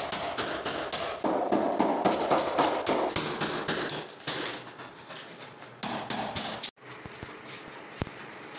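Rapid hammer blows, several a second, chipping and breaking up an old concrete kitchen countertop. The hammering breaks off suddenly about two-thirds of the way through, leaving only a few faint taps.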